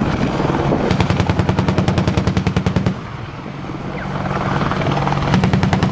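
AH-64 Apache attack helicopter flying low: a rapid, even thudding of the rotor blades over a steady low hum. It fades for a couple of seconds midway, then comes back stronger near the end.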